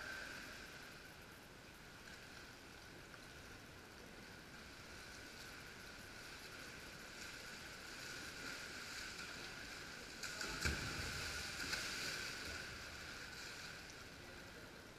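Water splashing and sloshing as a kayaker throws a playboat around in a swimming pool, over a steady hum. The splashing is loudest for a couple of seconds about ten seconds in, then settles.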